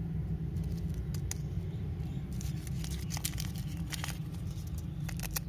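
Paper candy wrapper crinkling and tearing as a lollipop is unwrapped by hand, in a string of irregular sharp crackles that grows busier after about two seconds. A steady low rumble runs underneath.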